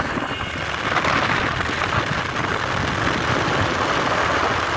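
Steady rushing road and wind noise from a moving vehicle.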